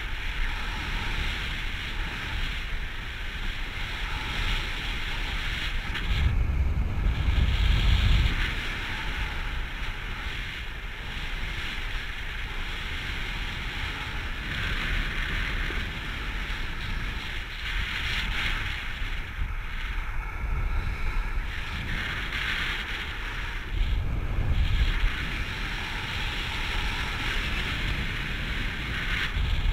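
Airflow of a paraglider in flight buffeting the microphone: a steady rushing hiss, with heavier low rumbling gusts about six seconds in and again near twenty-four seconds.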